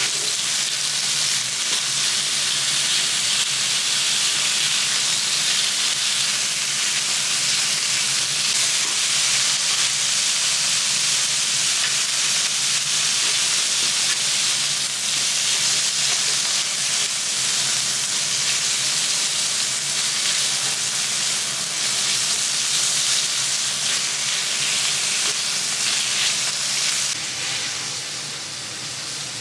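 Meat sizzling on a hot teppanyaki griddle: a steady, loud frying hiss that eases off somewhat near the end.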